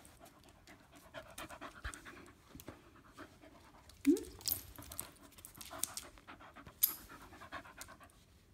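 Dog panting close to the microphone in a steady rhythm, with one short rising note about four seconds in.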